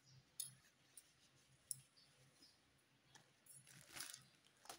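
Faint, scattered clicks of a metal spoon and fork being handled after a wipe with a tissue, with a short rustle near the end.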